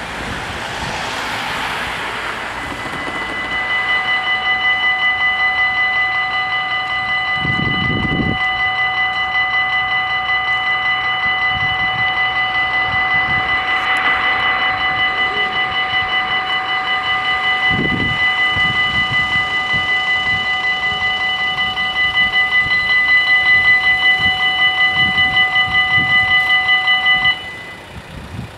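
Level crossing warning bells ringing in a rapid, steady repeating pattern. They cut off abruptly near the end.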